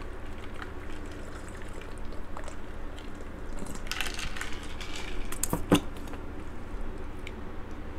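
A person drinking iced soda from a large glass, with gulping and liquid sounds, then a sharp knock about three quarters of the way in as the glass is set down on the table.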